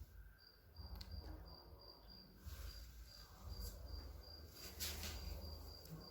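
A cricket chirping faintly in an even pulsed rhythm, about four to five chirps a second, over a low rumble, with a few light clicks; the loudest click comes about five seconds in.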